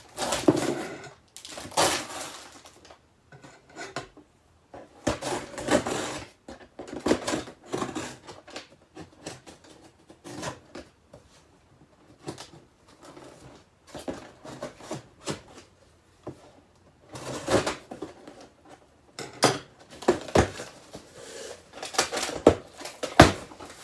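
A cardboard box of packaged groceries being opened and unpacked by hand: irregular bursts of rustling and scraping with light knocks as items are handled and set down.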